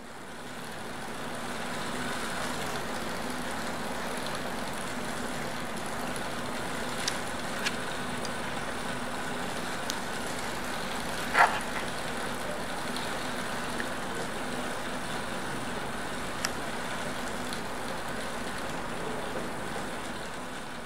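A steady mechanical drone with a low hum, fading in over the first two seconds. A few faint clicks sound through it, with one louder click about eleven seconds in.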